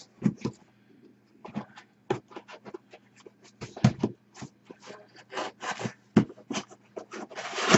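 Pocketknife cutting the packing tape on a cardboard box while the box is handled: a string of short clicks, scratches and cardboard rubs, with longer scraping strokes in the middle and near the end.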